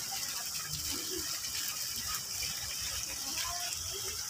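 Small garden fountain and rock waterfall splashing steadily into a shallow pond.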